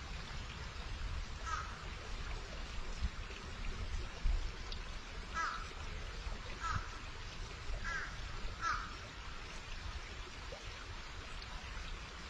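A bird calling in short pitched calls: once about a second and a half in, then four more about a second apart in the middle, over a steady low rumble.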